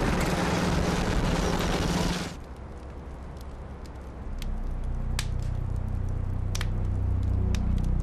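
Street ambience with traffic noise and a low vehicle hum that cuts off abruptly about two seconds in. It gives way to a quiet room with a few sharp clicks, and a low steady drone of background music swells in from about halfway.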